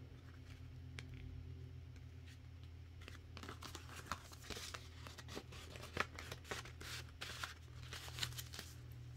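Paper envelopes and a card being handled and slid apart: soft rustles and short crinkles, scattered from about three seconds in, over a steady low hum.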